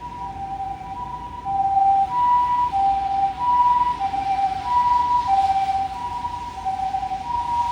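Japanese ambulance's two-tone siren alternating high and low, about one high-low cycle a second. It grows louder about a second and a half in.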